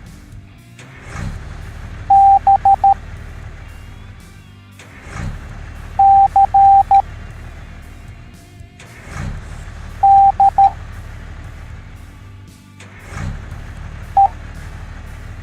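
Morse code beeps, a single steady tone in long and short elements, spelling out the letters B (dash-dot-dot-dot), C (dash-dot-dash-dot), D (dash-dot-dot) and E (a single dot), one letter about every four seconds. Under the beeps runs a low, steady rumble that swells about every four seconds.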